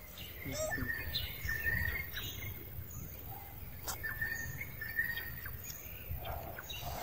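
Birds calling in the background: two similar runs of whistled notes about three seconds apart, with short chirps between them, over a low rumble.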